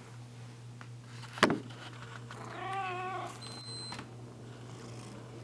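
Bengal cat meowing once, a wavering call lasting under a second, shortly after a sharp thump. A faint, steady high-pitched beep follows near the end.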